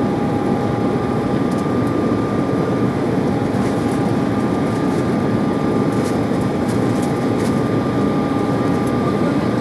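Steady engine noise of an Embraer 190 jet airliner heard inside the passenger cabin: an even rush with two steady tones above it, holding level throughout.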